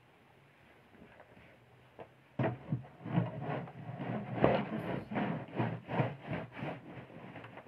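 Clothes being handled: a quick run of rustling, rubbing and soft knocks of fabric starting about two and a half seconds in, after a quiet start.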